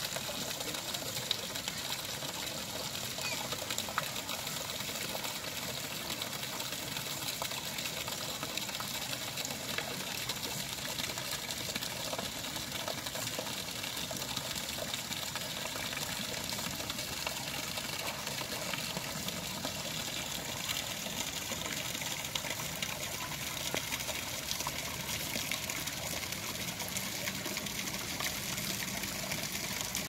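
Water running and splashing steadily into a garden pond, an even rushing sound that does not change.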